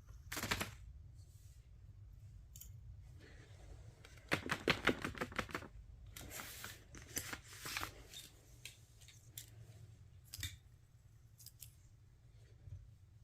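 Plastic fidget toys being clicked and handled: scattered sharp clicks, with a quick run of clicks about four seconds in.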